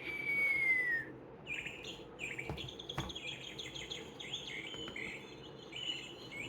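Recorded birdsong played from a children's sound book's small speaker: one long falling whistle, then a run of quick chirps.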